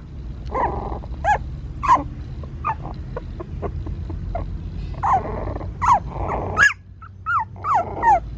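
Newborn puppies, about two weeks old, giving a dozen or so short, high yelps and whimpers that fall in pitch, mixed with little growls as they are handled.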